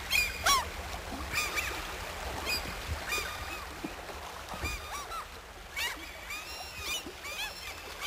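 A flock of gulls calling: many short overlapping cries that rise and fall in pitch, several a second, over a faint steady hiss.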